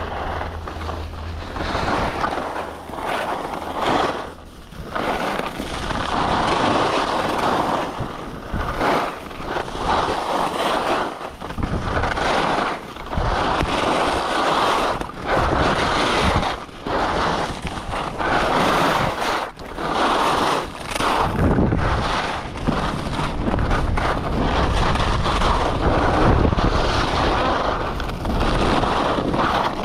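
Wind roaring over an action camera's microphone while skiing downhill, surging and dropping away again and again.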